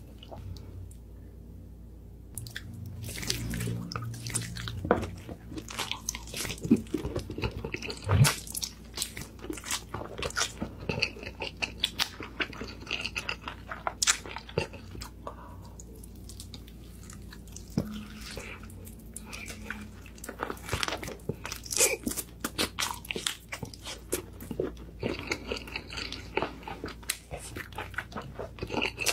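Close-miked eating: bites into glazed roast chicken with crunching and wet chewing, many sharp irregular crackles and smacks.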